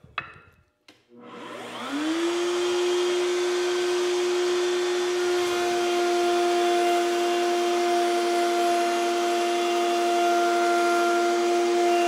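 A click, then a table-mounted router spins up with a rising whine over about a second and runs steadily as a 7/8-inch core box bit cuts a shallow cove along a wooden board fed past it; a second, higher tone joins about halfway through.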